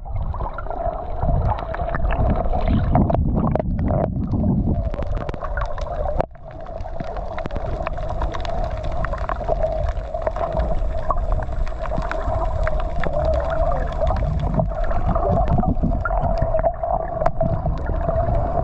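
Underwater sound picked up by a submerged camera: muffled rumbling water noise with scattered crackles and a steady hum. The sound drops out briefly about six seconds in.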